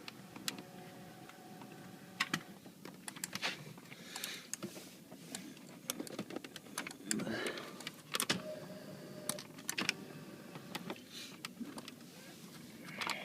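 Power seat motor of a BMW E39 5-Series running to move the seat, a steady electric hum heard twice, with scattered clicks and knocks in between.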